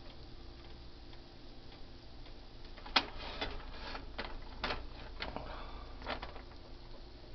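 Leftover pizza slices frying in a nonstick pan, with faint, irregular crackling pops. About three seconds in comes a run of sharper clicks and pops, the first the loudest, which dies away about six seconds in.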